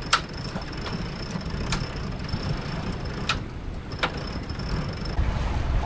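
Steady rush of wind and water on a sailboat under way, broken by four sharp clicks of the rigging as the genoa is furled in, with a faint high whine over it.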